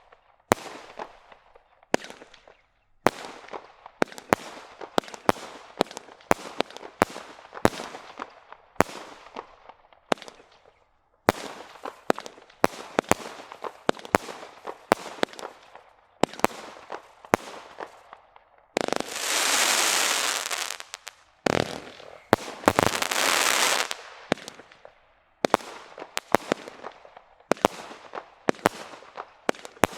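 Multi-shot consumer firework cake firing shot after shot, about one to two bangs a second, each followed by a crackling tail. About two-thirds of the way through come two loud spells of dense crackling, each a second or two long.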